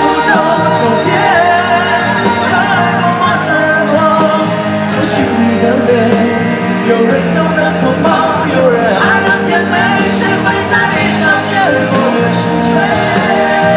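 Live rock band performance of a Mandarin pop-rock song: singers over electric and acoustic guitars, with the reverberation of a large arena.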